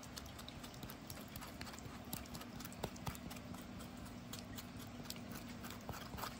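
Metal spoon scraping avocado flesh out of the skin, with faint irregular clicks and taps as it works the shell. A steady low hum runs underneath.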